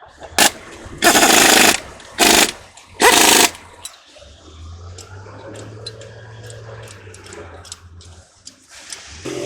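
Impact wrench running in four bursts, the second the longest, during a differential ring and pinion gear job, followed by a few light metallic clicks.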